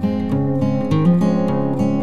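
Background music led by a plucked acoustic guitar playing a flowing run of notes.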